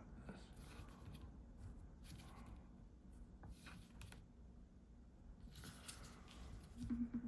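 Faint scratching strokes of a drawing tool on paper, a series of short, separate strokes, over a low steady room hum.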